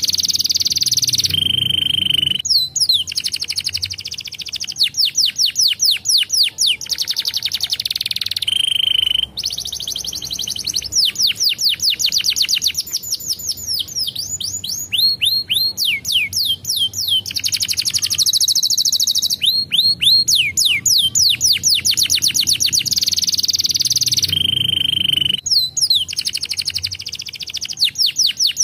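Domestic canary singing a long, almost unbroken song: fast trills of quickly repeated falling notes, with a few short held whistles between phrases.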